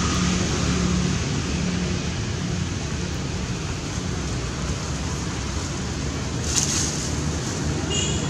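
Steady rushing outdoor background noise with a low hum beneath it, and a brief high chirp near the end.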